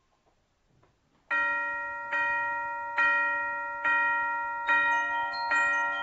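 Concert band mallet percussion: a ringing bell-like chord struck six times at an even pulse, about one stroke a second, each stroke left to ring. It starts a little over a second in, and further bell tones join around five seconds in.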